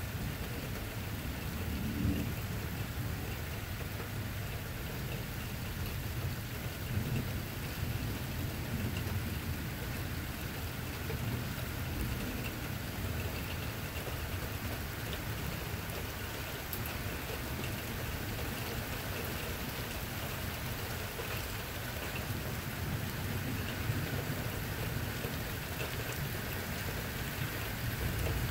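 Steady rain falling during a thunderstorm, with a low rumble of thunder underneath that swells and fades.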